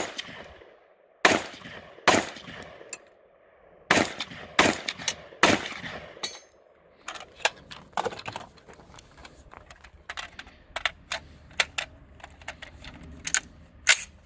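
AR-15 rifle firing single shots in an uneven string: about seven loud, sharp cracks in the first six seconds, each with a short echo. After that come many fainter gunshots, quicker and irregular.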